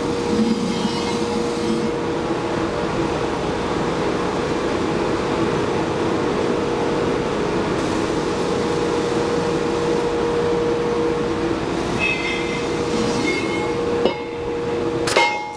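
Steady drone of shop machinery, a constant noise with a steady hum running through it. A sharp click comes near the end.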